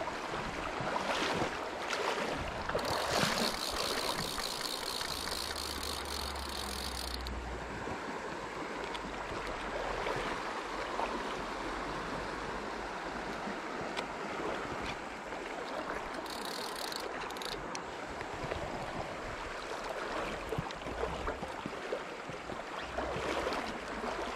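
Steady rush of flowing stream water. A high, rapid rattling buzz cuts in for about four seconds near the start and again briefly later.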